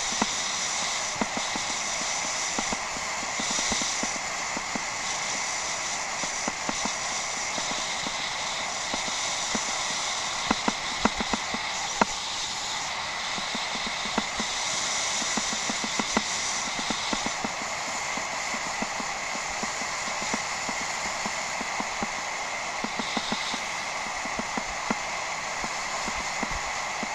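Bicycle ridden over a rough off-road track, heard through a head-mounted action camera: a steady rush of tyre and wind noise with scattered knocks and rattles, a cluster of sharper ones around the middle.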